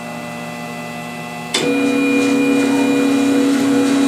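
Wanhao Duplicator 4 3D printer's stepper motor driving the build platform at the start of a print, a steady motor whine. About a second and a half in it switches abruptly to a louder, higher whine.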